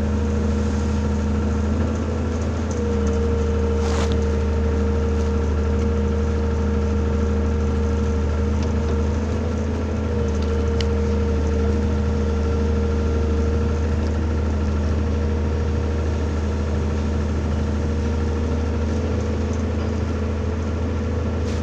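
Diesel engine of an SK200 hydraulic excavator running steadily, heard from inside the cab, with a steady whine over the low hum as the upper structure swings with a loaded bucket.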